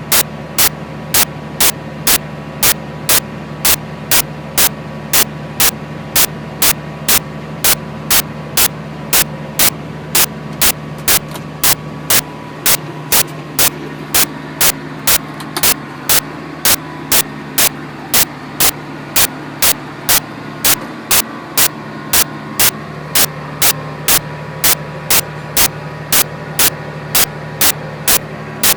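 John Deere 8400T tracked tractor's six-cylinder diesel running steadily under load while pulling a chisel plough. A sharp, regular click sounds about twice a second over the engine throughout.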